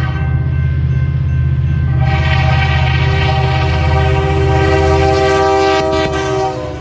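Montana Rail Link diesel locomotive's air horn blowing for the grade crossing as the train nears, over the steady low rumble of the locomotive. The horn is loudest in a long final blast that cuts off about six and a half seconds in as the locomotive passes.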